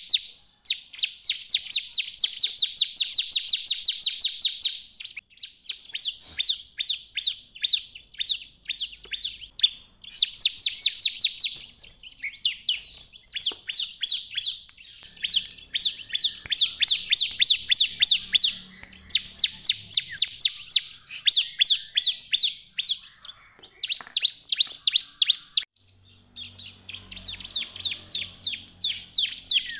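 Bar-winged prinia (ciblek) in full song: rapid runs of sharp, high chirps, about seven or eight a second, in bursts of one to four seconds with short breaks between.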